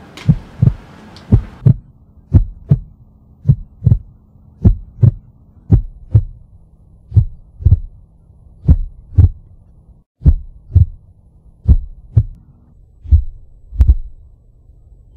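Heartbeat sound effect: a deep lub-dub double thump repeating about once a second at first and gradually slowing, over a faint low hum.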